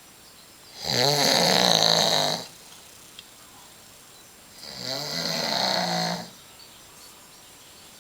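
A man snoring in his sleep: two long snores of about a second and a half each, some four seconds apart, with quiet gaps between.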